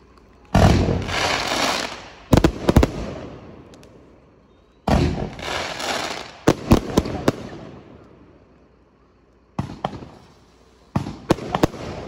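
Fireworks going off in volleys: sudden blasts that trail off over a second or two, each followed by a quick run of sharp cracks, about a second in, about five seconds in, and again near the end with a bang and a string of crackling reports.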